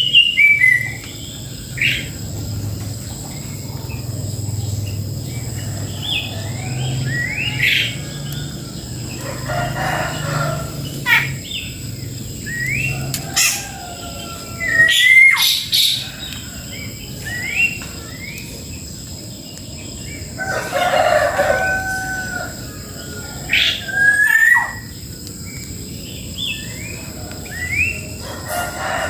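Several birds calling, among them domestic fowl: short rising chirps repeat throughout, and two longer, harsher calls come in partway through.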